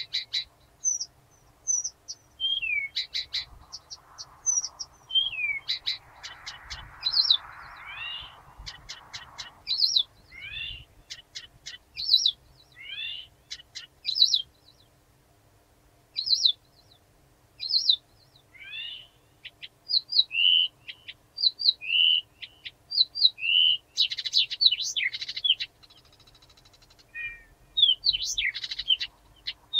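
Blyth's reed warbler singing at night: an unhurried string of short, varied high notes, quick downslurred whistles and clicks. Many notes are repeated two to five times before the next one comes, with short pauses between phrases.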